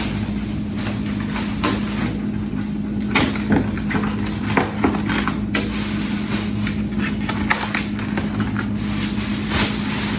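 Handling of groceries being put away: many short, irregular rustles, clicks and light knocks of packages, over a steady low hum.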